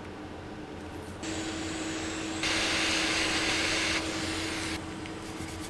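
Rushing air from a blower comes on about a second in, grows louder and brighter for about a second and a half in the middle, then drops back and cuts off near the end. A steady low hum runs under it.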